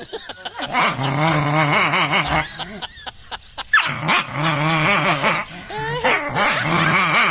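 A dog making long, wavering growling and whining sounds in three drawn-out spells.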